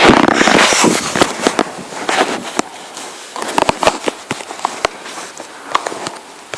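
Irregular crackling and clicking, densest and loudest in the first second, then scattered sharp clicks and pops.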